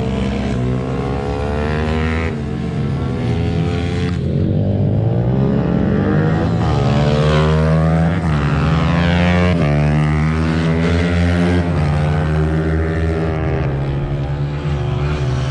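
Several racing motorcycle engines revving up and down together, their overlapping pitches rising and falling as the bikes accelerate and brake round a dirt TT track, a little louder in the middle.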